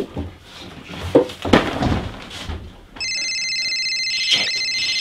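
A few dull knocks and rustles, then about three seconds in a phone's electronic ring starts again, a steady high multi-tone trill held for about two seconds.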